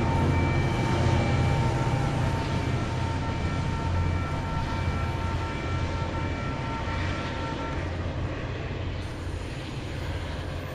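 Caltrain diesel locomotive and bilevel train running through the station: a steady low diesel rumble with a few high whining tones that drop out about eight seconds in, slowly getting quieter.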